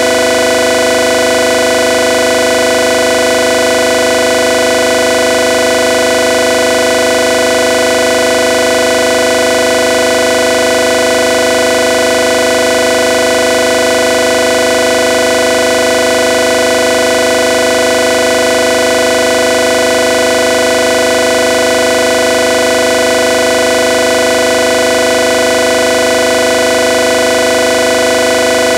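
Steady electronic drone: a loud chord of several held tones that never changes, with no beat or rhythm.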